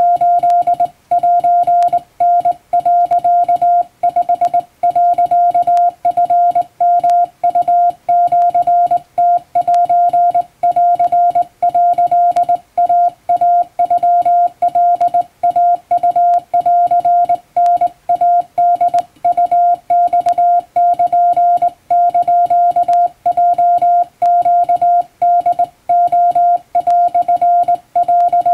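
Japanese wabun Morse code sent by hand on a straight key, heard as a single steady tone keyed on and off in dots and dashes, with only brief gaps between characters.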